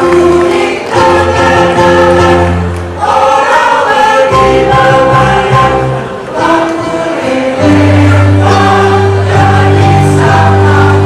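Mixed choir of men and women singing in long held chords that change every second or two, with electronic keyboard accompaniment underneath.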